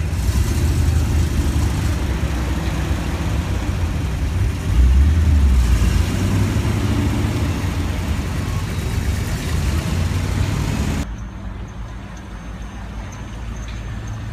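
V8 engine of a C2 Corvette Sting Ray convertible rumbling as it drives slowly past, loudest about five seconds in. About eleven seconds in, the sound drops abruptly to a quieter engine running.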